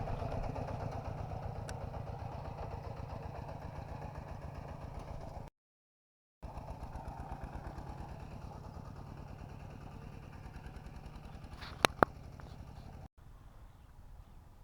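A small engine running steadily with an even low pulse. Near the end there are two sharp clicks close together. The sound drops out for about a second near the middle and again near the end.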